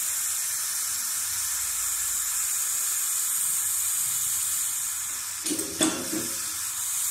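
Pressurised water spraying in a thin, steady hissing jet from a knife cut in a PVC pipe, the leak reopened under high pump pressure. A brief knock comes about five and a half seconds in.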